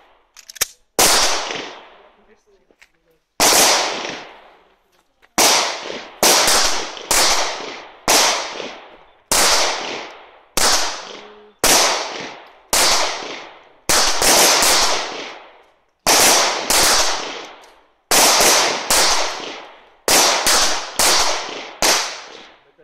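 Semi-automatic pistol fired over and over, around two dozen single shots at an uneven pace of roughly one or two a second, with a couple of longer pauses. Each shot is a sharp crack that dies away quickly in an outdoor echo.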